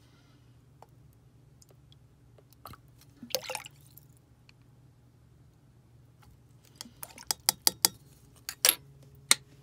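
Liquid aminos pouring briefly from the bottle a few seconds in, then a plastic measuring spoon tapping and clicking against a glass measuring cup about ten times in quick succession near the end.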